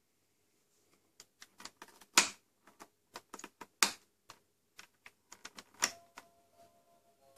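Irregular plastic clicks as buttons are pressed and the dial is turned on the control unit of a Fisher-Price Ocean Wonders cradle swing; a few clicks are sharper and louder. Near the end the swing's electronic tune begins, faintly.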